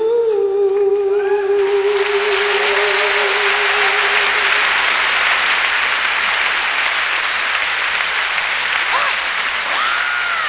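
A man's long sung note, held steady into the microphone, fades out about four seconds in. A theatre audience breaks into applause under it, and the applause continues at full strength after the note ends.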